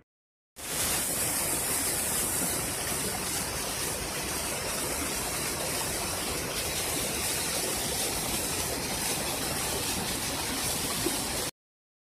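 Small waterfall pouring over rocks: a steady rush of falling water that starts about half a second in and cuts off abruptly shortly before the end.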